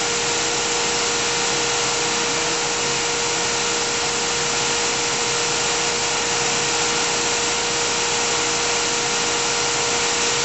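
GMP SG-1000/400 hydraulic surface grinder running: its wheel spindle and hydraulic pump motors give a steady hiss with a constant whine while the table traverses under hydraulic feed.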